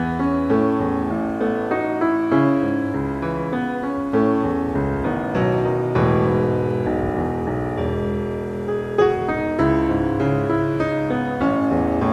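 Background piano music: a steady run of notes with a moving melody over sustained bass notes.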